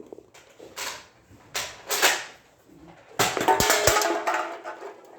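Foam-dart toy blaster fired several times, each shot a short puff of air, followed about three seconds in by a louder stretch of clatter with sharp clicks and a steady tone through it.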